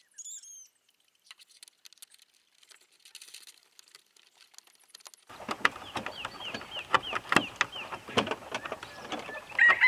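Light clicks and taps of hands handling the door opener's plastic control box, faint at first and louder from about halfway, with a run of quick high chirps from birds. Near the end a rooster starts crowing loudly.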